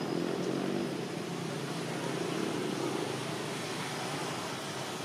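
Steady low rumble of distant traffic, with no distinct events.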